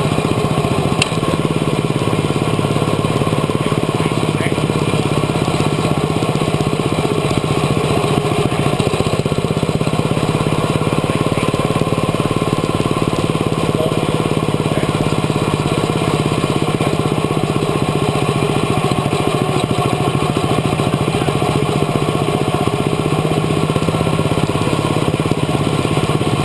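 Quarter midget race car's small single-cylinder engine running at a steady pitch, heard close up from the car's own cockpit.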